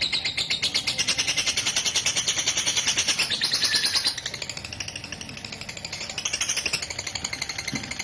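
Lovebird's long rapid chattering song ('ngekek'): a fast, unbroken string of high notes. It weakens about four seconds in and picks up again near the end.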